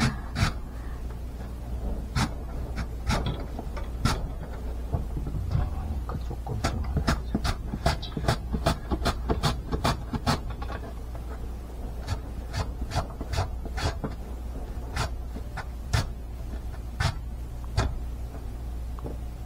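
Raw purple Jayoung potato being pushed down a plastic julienne slicer's blade, shredding into a stainless steel bowl: a run of sharp slicing strokes with pauses between, about two a second through the middle.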